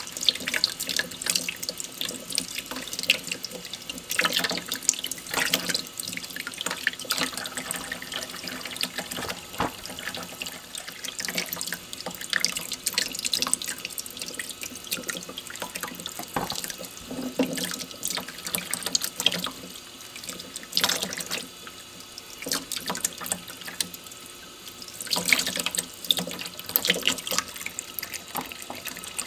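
Tap water running in a thin stream into a stainless steel sink while fresh chicken eggs are rubbed clean under it by hand, with frequent short splashes and clicks through the steady flow.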